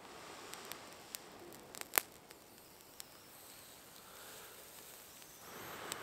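Breath blown in gusts into a smouldering tinder bundle to coax it into flame, a soft rushing hiss that swells at the start and again near the end, with a few sharp clicks, the loudest about two seconds in.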